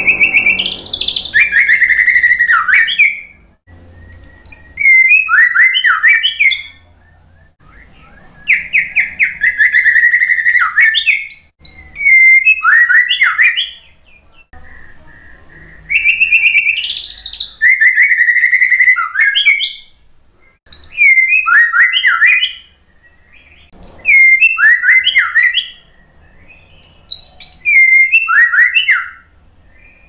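White-rumped shama singing: about eight loud phrases of two to three seconds each, mixing clear whistles and fast trills, with short pauses between them.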